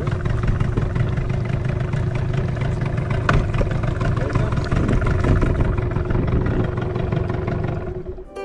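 Two-stroke Yamaha outboard motor on a dinghy running steadily with an even drone, fading out near the end.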